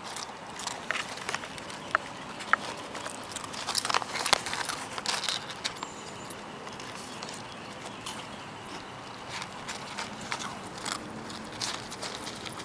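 A dog eating crumbs out of a crisp packet: the bag crinkling and crackling unevenly as its snout works inside, with chewing and licking, busiest about four seconds in.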